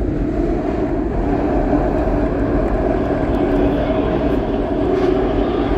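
SEPTA Market-Frankford Line ADtranz M4 train running at express speed on elevated track, heard from inside the car: a steady rumble of wheels on rail with a constant hum over it.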